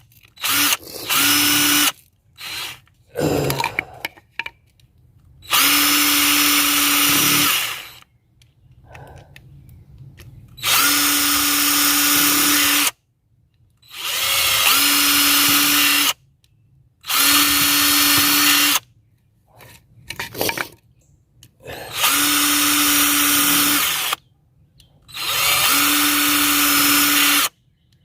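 Bauer 20-volt cordless impact driver run by trigger in repeated bursts of about two seconds each. Its motor whines at a steady pitch through each run, with a few quick trigger blips a few seconds in.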